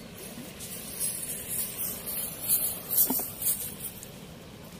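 Water splashing and spraying: a hissy run of splashes lasting about three and a half seconds, with a few louder spikes, the loudest about three seconds in.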